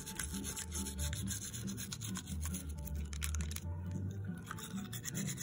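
Rapid rubbing and scraping strokes as a small yellow stick is worked against a Shiba Inu's teeth, over background music.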